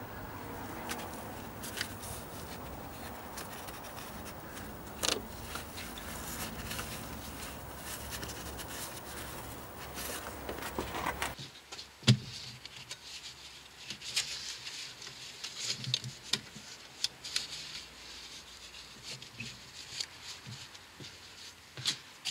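Faint rubbing, clicks and light knocks from a gloved hand working a ribbed auxiliary drive belt onto its pulleys. A steady low hum underneath stops abruptly about halfway through.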